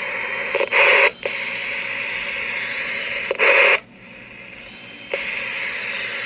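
Ranger RCI-2970N4 CB radio's receiver hiss from its speaker on sideband, changing level several times, with two short louder bursts about a second in and about three and a half seconds in. The changes come as the radio's added high cut filter is demonstrated.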